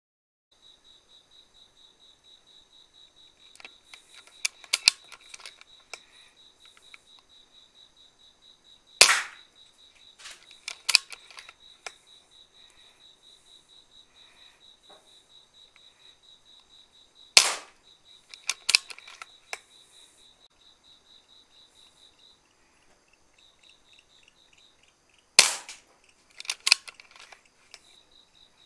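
Three shots from an Air Venturi Avenger .177 PCP air rifle, each a sharp crack with a short tail, about eight seconds apart. Each shot is followed by a few smaller sharp clicks. A faint steady high pulsing runs in the background.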